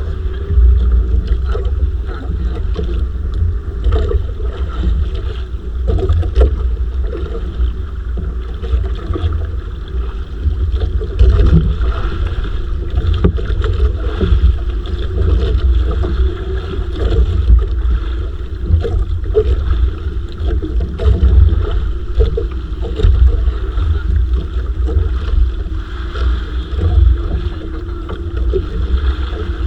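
Steady noise aboard a small outrigger fishing boat at sea, with wind buffeting the microphone in uneven gusts.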